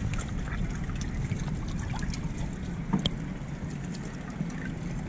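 Harbour water sloshing around the camera at a boat hull's waterline: a steady muffled low rumble with a few small clicks, one sharper click about three seconds in.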